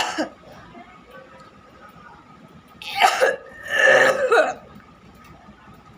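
A person making two loud, forced coughs, about three and four seconds in, the second longer; the end of a similar burst cuts off just at the start.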